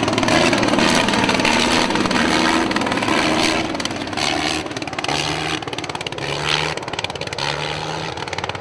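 Sopwith Camel's original 160 hp Gnome rotary engine running in flight, a loud buzzing engine note that grows somewhat fainter toward the end.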